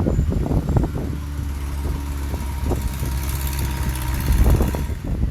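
Heavy diesel earthmoving machine engine running steadily at low revs, with irregular clunks and knocks at the start and again about four seconds in.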